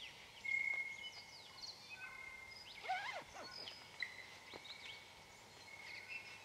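Several birds singing: clear held whistles and short chirps, with a burst of tumbling notes that sweep down and up about three seconds in.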